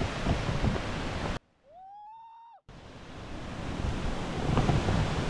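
Waterfall rushing steadily, with wind buffeting the microphone. About a second and a half in it cuts out for about a second, and a single call rises in pitch and then holds. The rush then returns and builds louder.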